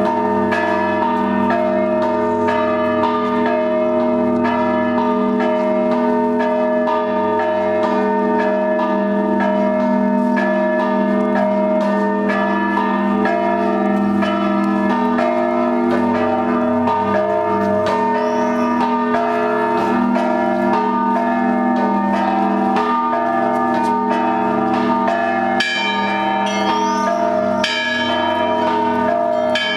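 Russian Orthodox monastery bells ringing together in a continuous peal. Many overlapping strokes keep the deep bells sounding steadily under quicker higher bells.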